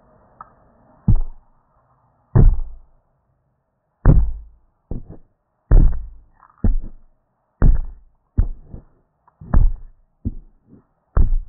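A string of about a dozen heavy thumps at uneven intervals, some in quick pairs, each dying away within a fraction of a second.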